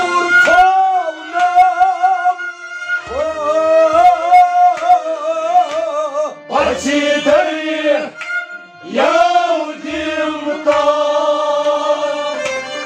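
A Sufi folk song: a male singer's voice in long, ornamented, gliding phrases, with a bowed string instrument accompanying.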